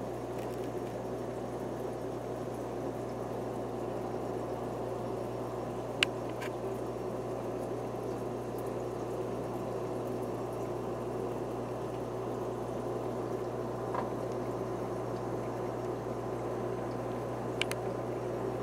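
Aquarium filtration running with a steady hum and a constant bubbling of water. A single sharp click comes about six seconds in, and a few fainter clicks follow later.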